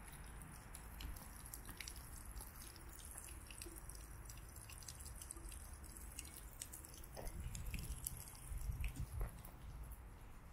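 Faint crunching of footsteps on a fine-gravel path, over a low steady background rumble, with a few heavier thumps about seven to nine seconds in.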